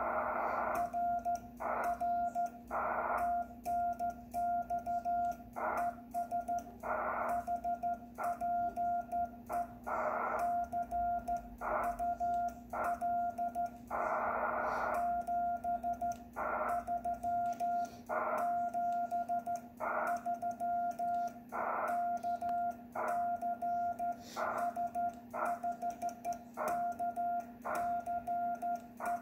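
Morse code sent by hand on a 1963 Vibroplex Lightning Deluxe key worked side-to-side as a sideswiper, heard as a single beeping tone from the ham radio keyed in dots and dashes. Short bursts of receiver hiss come between the characters, over a steady low hum.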